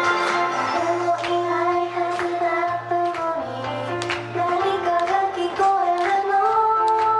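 A female J-pop idol group singing a song in unison into handheld microphones over a pop backing track with a steady beat.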